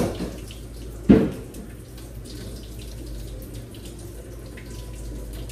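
Chicken broth bubbling in a skillet of steak strips and bell peppers. Metal tongs knock against the pan twice, the second time about a second in.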